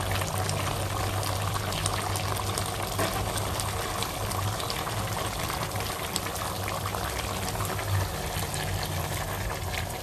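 Chicken curry bubbling and crackling at a simmer in a pot, with many small pops over a steady low hum.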